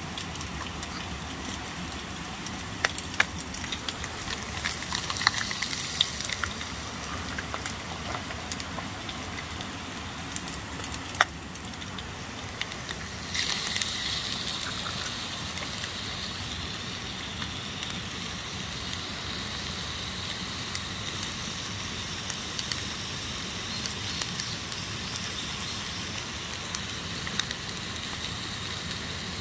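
Campfire crackling with scattered sharp pops. About halfway through, a steady frying sizzle starts suddenly, as food goes into a hot pan over the fire.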